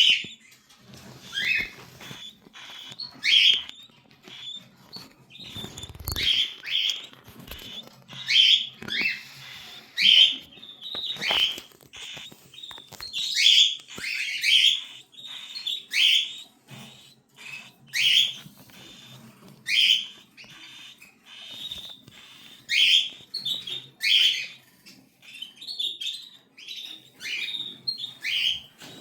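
Cockatiel chicks calling: short, rasping calls, one every second or so.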